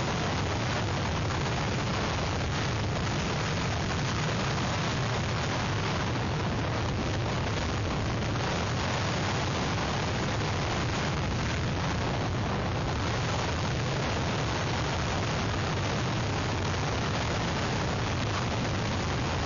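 Hurricane-force wind blowing over an outdoor webcam's microphone: a steady rushing noise with a heavy low rumble.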